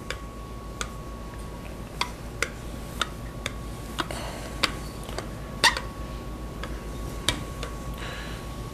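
Metal rolling pin rolling dough on a floured granite counter, with irregular sharp clicks and knocks, roughly two a second, over a faint steady hum.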